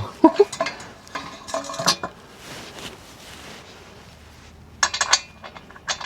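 Metal tools and wheel hardware clinking and clattering in short runs of sharp knocks, with a quieter pause in the middle, as a motorcycle front wheel is worked on for a tire change.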